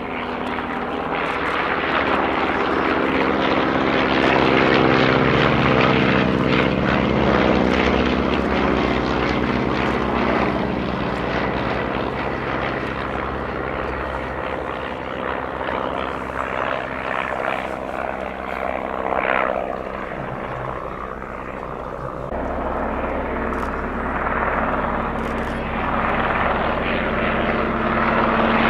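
The engines of an Avro Tutor and a de Havilland Tiger Moth droning together as the two biplanes fly past in formation. The Tutor has an Armstrong Siddeley Lynx seven-cylinder radial; the Tiger Moth has a Gipsy Major four-cylinder inline. The drone swells over the first few seconds, eases off a little past the middle, and grows louder again near the end.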